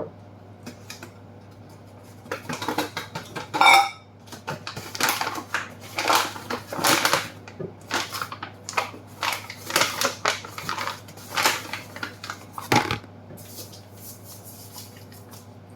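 Kitchen utensils and dishes clinking and scraping in irregular bursts for most of the stretch, over a steady low hum.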